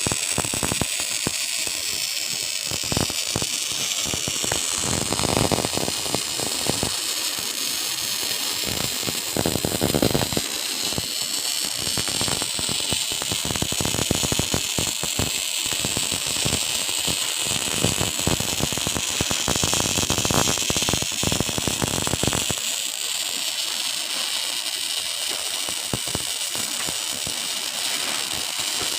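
Electric welding arc crackling and sputtering: an irregular stream of pops over a steady high hiss. The pops stop about three-quarters of the way through while the hiss carries on.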